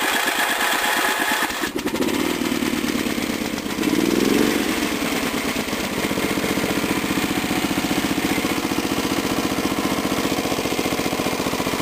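Electric starter cranking a 1981 Briggs and Stratton 11 hp vertical-shaft single-cylinder engine on a cold start; it catches after about two seconds, its pitch climbs briefly around four seconds in, and it then runs steadily at full throttle.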